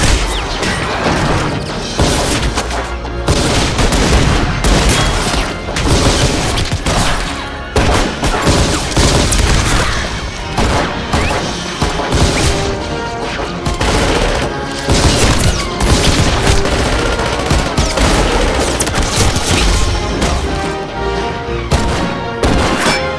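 Rapid gunfire from pistols in a film shootout, many shots close together, dubbed in as added sound effects over dramatic action score music. The music comes more to the fore near the end.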